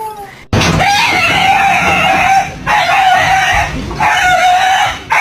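A dog screaming in long, loud, raspy cries, four in a row, each about a second long and held at one pitch.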